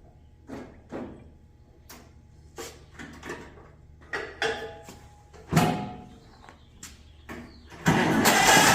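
Scattered clicks and knocks, then about eight seconds in the 1948 John Deere Model A's two-cylinder engine starts and runs loudly.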